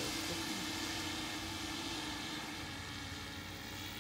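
Electric motors and propellers of the Langley Aerodrome No. 8 tandem tilt-wing VTOL testbed in flight: a steady hum with several held tones over a rushing hiss, slowly fading as the aircraft moves away.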